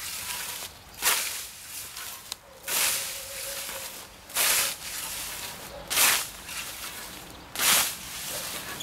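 Hand scythe swishing through grass in steady mowing strokes, five swishes about a second and a half apart.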